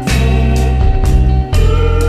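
Background music with a heavy, loud bass line, its low notes changing about every second and a half under held higher tones.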